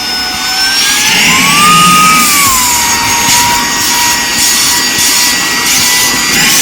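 Saker 3-in-1 cordless handheld vacuum's brushless motor running with a steady whine over the rush of suction. About a second in, the pitch rises as it is switched to high mode, then settles a little lower and holds steady.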